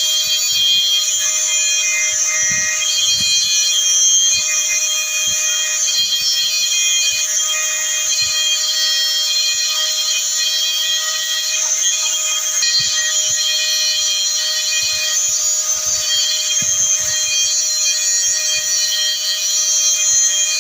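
Electric grinder running steadily with a continuous high whine while it grinds the tips of steel wire spear prongs to a point.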